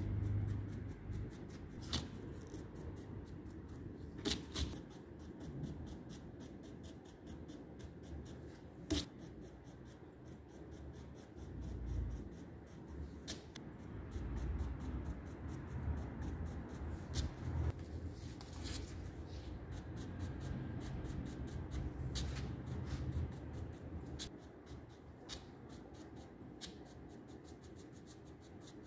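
Bristle brush scrubbing and dabbing over the carved moulding of a gilded wooden picture frame: a quiet, scratchy rubbing broken by many small ticks.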